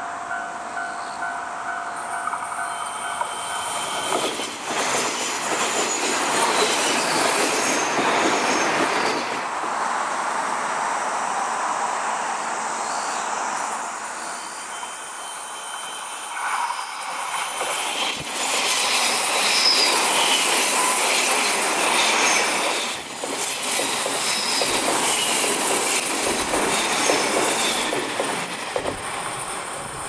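JR West 381 series limited express electric train running past on curving track: wheel and rail noise with short high wheel squeals, heard over several successive passes with abrupt changes between them. A steady high ringing tone sounds through the first few seconds, then stops.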